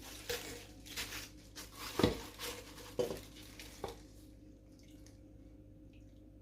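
Kitchen dishes and utensils clattering: a string of knocks and clinks, the loudest about two seconds in, stopping about four seconds in.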